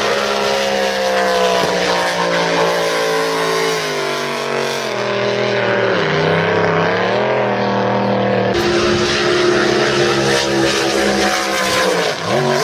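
Racing drag boat engines running hard at high speed. The pitch dips and climbs back about halfway through, and then the sound cuts abruptly to another engine note.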